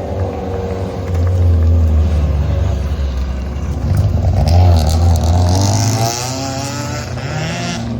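Hill climb race car engine running hard, its revs rising and falling, loudest about halfway through.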